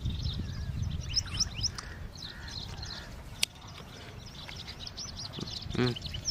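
Small birds chirping in quick runs of short calls over a steady low rumble, with one sharp click about three and a half seconds in.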